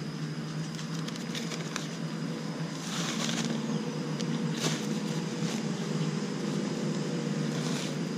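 Black plastic nursery bags rustling and crackling as they are opened and filled with soil by hand, in short bursts about three seconds in, near five seconds and near the end. A steady low hum runs underneath.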